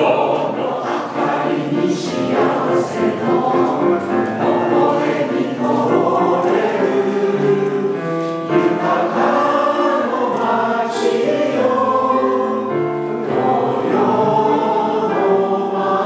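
A hall full of people singing a song together in chorus, with piano accompaniment and a man leading the singing through a microphone.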